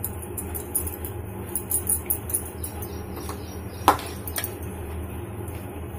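Washed, damp poha (flattened rice) tipped from one plastic bowl into another and handled, making faint scattered rustles and light ticks, with two sharp plastic knocks about four seconds in, over a steady low hum.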